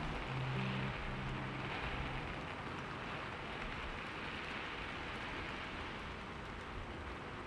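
A steady, even hiss of ambient noise, rain-like in character, with a few low piano notes sounding and dying away in the first couple of seconds.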